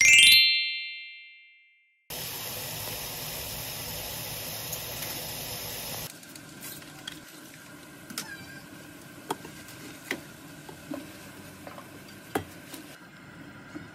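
A short bright chime rings out and dies away. A few seconds of steady rushing noise follow. Then comes a pan of water on the heat, with a quieter hiss and a scatter of light ticks and taps as chwinamul stems are put in to blanch.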